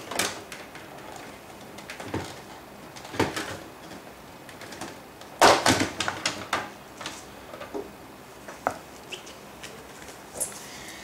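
Hard plastic parts of a Barbie vacation house clicking and knocking as they are unclipped and handled, in scattered bursts, with the loudest cluster of clatter about five and a half seconds in.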